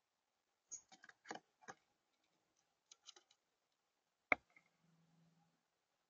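A run of light clicks and taps, then one sharp knock about four seconds in, as a blue jay lands on a seed-covered feeder platform.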